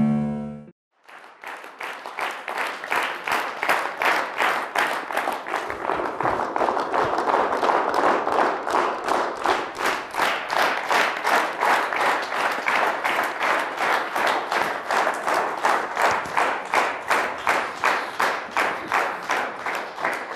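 Studio audience clapping in unison in a steady rhythm of about three claps a second, starting about a second in just after a piano chord dies away.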